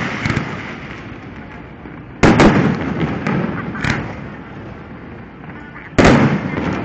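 Fireworks going off: two sudden loud bangs about four seconds apart, each trailing off in a rumbling, crackling tail, with a few smaller pops in between.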